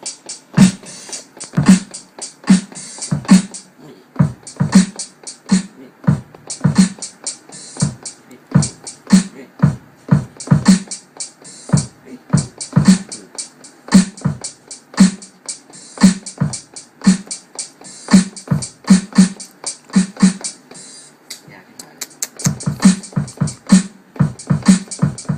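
Drum-machine beat finger-drummed on a Native Instruments Maschine pad controller: low kick-drum thumps under crisp snare and hi-hat hits. The low thumps drop out for about a second near the end, then come back in.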